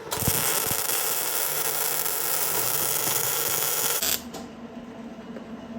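110-volt wire-feed welder arc crackling and hissing as a bead is laid, starting abruptly and cutting off after about four seconds. The welder reckons the wire speed is a little high, leaving a goopy bead.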